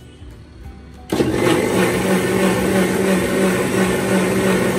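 Electric kitchen mixer-grinder (mixie) switched on about a second in and running at a steady speed, its motor humming as it blends a liquid mix of milk, sugar, vanilla and cream in a steel jar.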